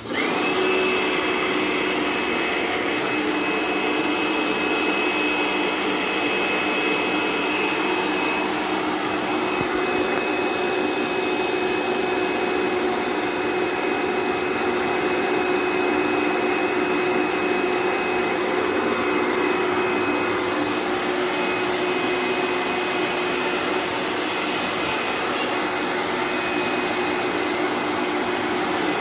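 Laguna machine's electric motor switched on and running steadily, like a vacuum cleaner or blower, with a high whine and a lower hum held at one pitch.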